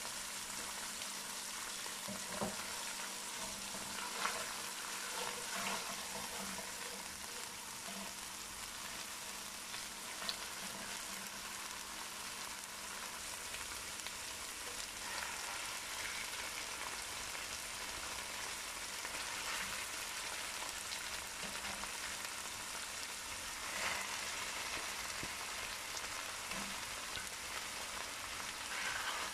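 Crushed garlic and black pepper sizzling steadily in hot fat in a nonstick wok, with a few short light knocks scattered through.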